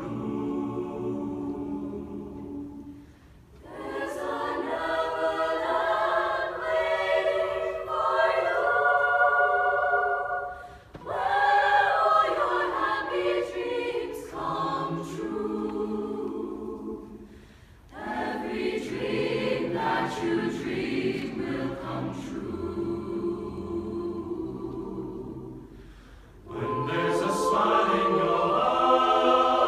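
Chamber choir singing, in long sung phrases broken by four brief pauses.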